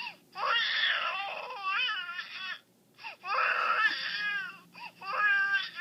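High-pitched crying: two long wailing bouts with wavering, falling pitch, then a few shorter cries near the end.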